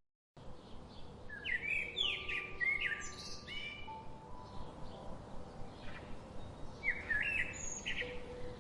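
Songbird chirping outdoors: two clusters of quick, sweeping chirps, one about a second and a half in and another about seven seconds in, with quieter calls between.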